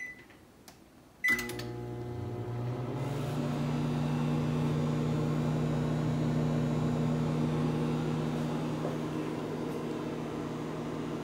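Over-the-range microwave oven starting up after its keypad beeps: a beep at the start, another beep with a click about a second in, then a steady running hum whose low tone steps up slightly in pitch a couple of seconds later and holds.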